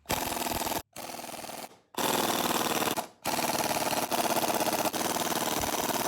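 Impact wrench hammering on the ring gear bolts of a 10-bolt differential carrier, in four bursts, the second quieter and the last the longest.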